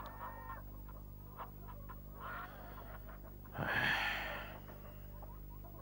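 A man's long, heavy sigh about three and a half seconds in, over a steady low hum. Hens cluck faintly near the start.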